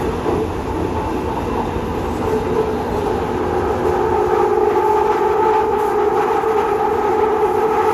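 London Underground 2009 Stock Victoria line train running in the tunnel, heard from inside the carriage: a continuous rumble of wheels on rail with a steady whine that grows louder about halfway through.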